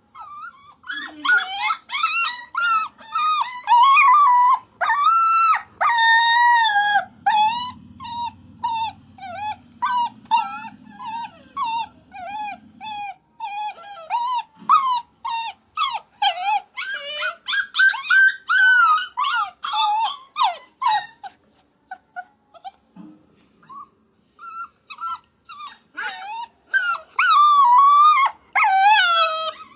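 Puppy whining and yowling in a long string of short, high-pitched cries that bend up and down in pitch, like the dog is talking. The cries thin out about two-thirds of the way through, then come thick again near the end; a faint low hum lies under them for a few seconds early on.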